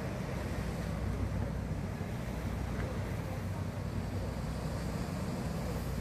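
Steady low drone of a boat engine running at an even speed, with wind noise over it.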